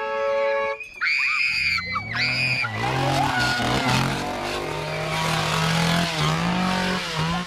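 Train horn scare prop blasting: a steady chord of several tones cuts off just before a second in, two short high-pitched wavering sounds follow, and then comes a long noisy rush with a low drone that steps up in pitch.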